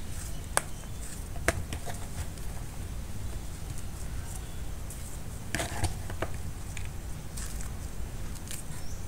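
Oyster mushrooms being torn apart by hand over a plastic basin: scattered soft snaps and rustles as the caps and stems split, over a steady low rumble.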